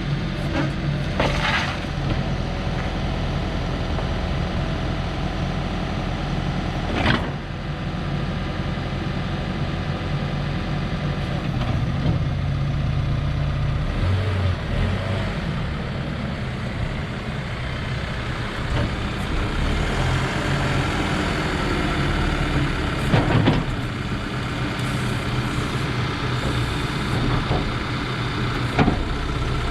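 2014 Case 580SN loader backhoe's diesel engine running while its loader and backhoe hydraulics are worked, the engine note swelling under load partway through. A few sharp knocks stand out over the engine.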